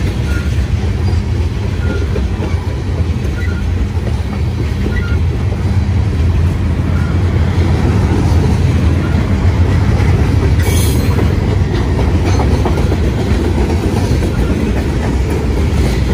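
Norfolk Southern freight cars rolling past close by: a steady low rumble of steel wheels on rail with clickety-clack over the joints, and a brief high-pitched sound about ten seconds in.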